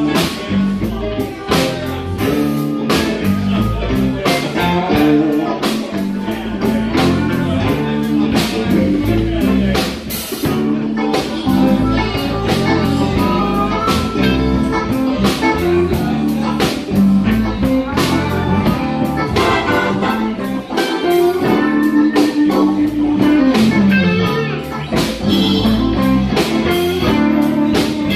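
Live blues band jamming: a guitar line over a walking bass and a steady drum beat.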